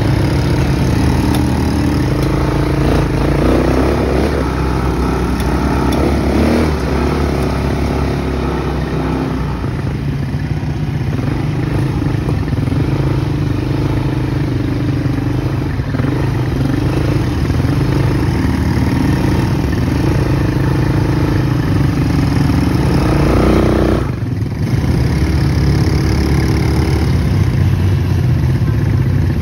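Quad bike (ATV) engines running over a dirt trail, their pitch rising and falling with the throttle. The sound dips briefly near the end.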